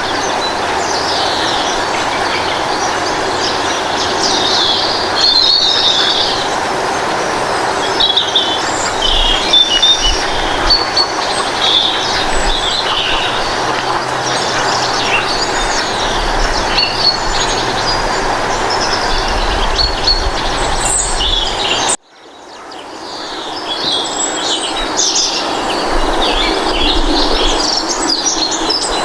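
Birdsong ambience: many small birds chirping over a steady rushing background noise. About 22 seconds in, the sound cuts out abruptly and fades back in.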